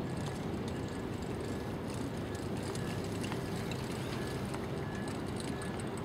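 A pony trotting in harness, pulling a light four-wheeled carriage over turf: faint hoofbeats and wheel and harness noise over a steady low outdoor rumble.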